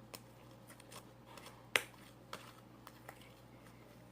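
Faint, scattered small clicks and snaps of sticky homemade glue-and-foot-deodorant slime being worked by hand, the sharpest about two seconds in.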